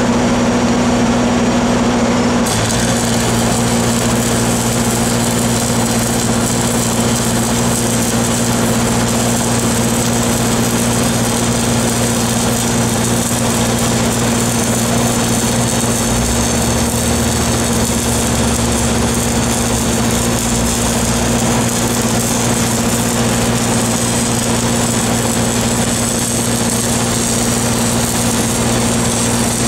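Engines running steadily under the crackle of stick-welding arcs on steel pipe; the crackle starts about two and a half seconds in. A deeper engine note joins for a few seconds around the middle.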